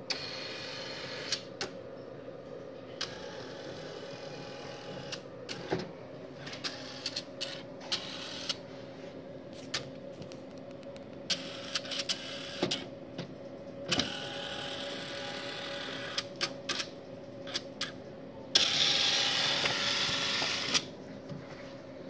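StorageTek SL48 tape library's robotic picker at work with an LTO tape cartridge: its motors whir in short runs, punctuated by many sharp clicks, over a steady hum from the machine. Near the end a louder whir lasts about two seconds.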